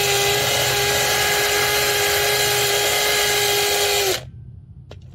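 A handheld power tool running at a steady high speed with an even whine, then switched off about four seconds in.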